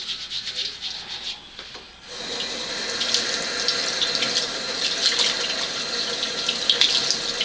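Soapy hands rubbing together, then about two seconds in the bathroom faucet comes on and runs into the sink, water splashing over hands being rinsed.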